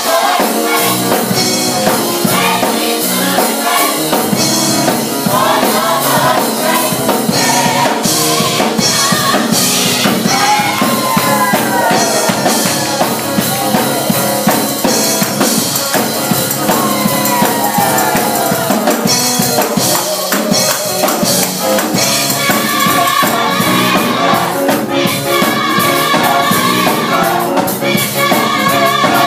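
Young adult gospel choir singing with a drum kit keeping a steady beat.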